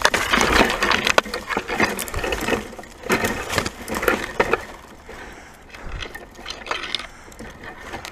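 Someone pushing through dense dry brush: twigs, branches and dead leaves crackling and snapping in irregular bursts, thinning out in the second half.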